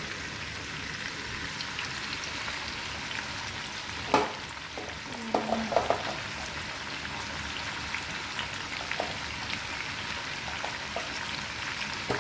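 Boiled chicken feet sizzling in a hot pan: a steady hiss with scattered crackles, and a single sharp knock about four seconds in.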